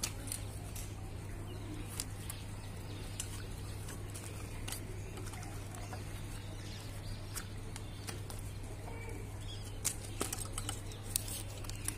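Light clicks and rattles of hands handling wiring and metal parts at a motorcycle's steering head while a steering lock is seated, with a cluster of clicks near the end, over a steady low hum.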